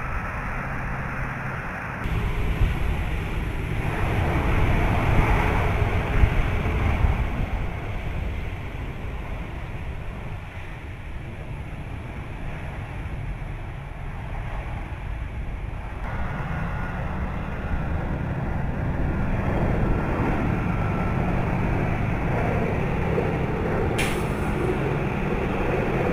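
KC-135 Stratotankers' CFM56 turbofan engines running, a steady jet rumble and hiss. The sound changes abruptly a few times, with a sharp click near the end.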